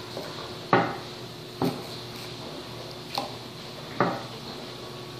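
Kitchen knife chopping through rhubarb stalks and knocking on a wooden butcher-block cutting board, four uneven chops.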